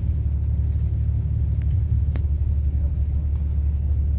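Steady low rumble of a moving coach's engine and road noise heard from inside the cabin, with one light click about two seconds in.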